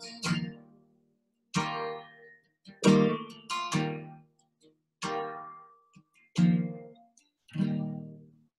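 Acoustic guitar playing slow closing chords: about seven single strums, one every second or so, each ringing briefly and fading to silence before the next, the last dying away near the end.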